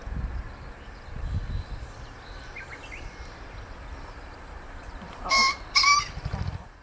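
Male green pheasant crowing its territorial call: two loud, harsh 'ken-ken' notes about half a second apart, a little after five seconds in. Right after them comes a brief low drumming of wing beats, the whirring display given with the crow.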